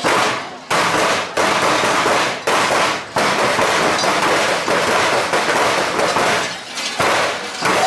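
Large Perchten bells clanging loudly and unevenly as the costumed figures move, in sudden surges that keep ringing on.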